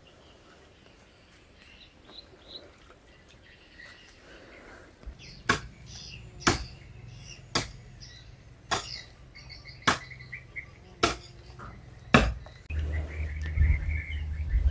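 A hand tool strikes seven times at an even pace of about one blow a second, while small birds chirp. A low steady hum comes in near the end.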